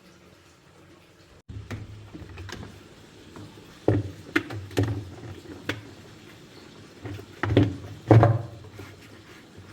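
A series of sharp knocks and clunks, about six, the loudest near the end, over a low hum that starts about a second and a half in.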